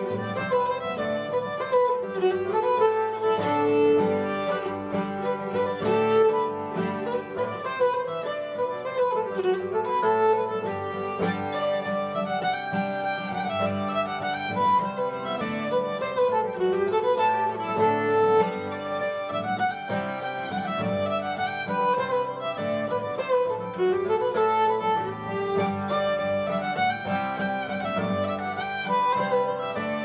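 Nyckelharpa bowed together with a strummed acoustic guitar, playing a Swedish slang polska in three-beat time.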